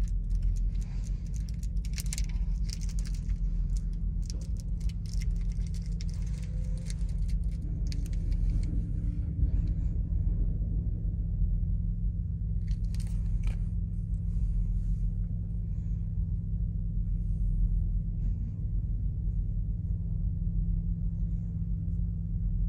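Steady low mechanical rumble, like an idling vehicle heard from inside a truck's cab, with light rustling and clicking of small items being handled over the first half.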